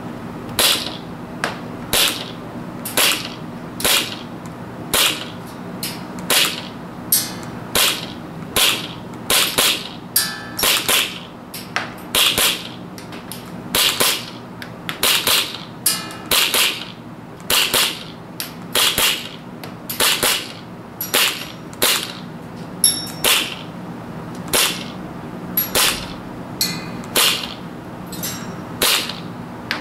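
KWA KMP9 gas blowback airsoft SMG fired in single shots, about one or two a second with uneven pauses, each a sharp crack.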